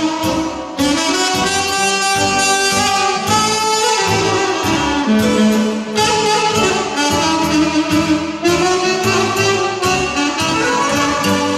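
Live band music: a saxophone plays a fast, ornamented lead melody over keyboard backing with a steady beat.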